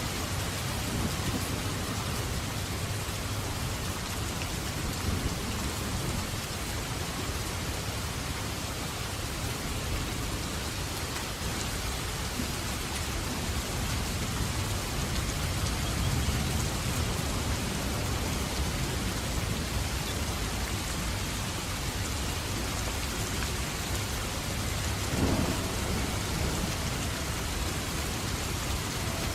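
Steady heavy rain with thunder rumbling low underneath, swelling and easing, and a short louder thump near the end.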